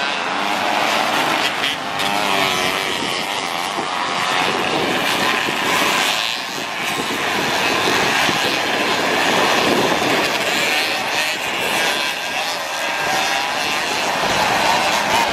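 A pack of 50 cc two-stroke motorcycle engines buzzing together, their pitches rising and falling as the riders rev and ease off through the course.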